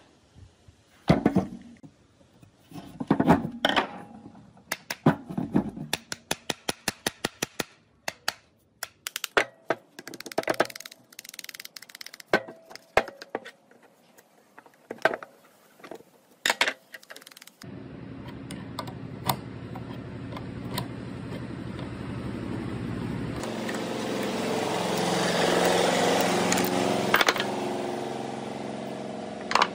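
Irregular clicks, taps and knocks of a screwdriver and metal housing parts as an electric hammer drill is worked on and reassembled. From a little past halfway a steady engine-like drone comes in, swells and then eases off slightly.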